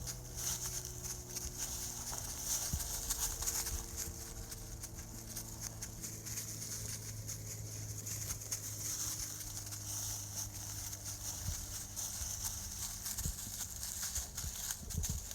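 Blood-tracking hound and handler moving along a scent track through woodland: quick footfalls and rustling in the undergrowth, with a steady low hum underneath.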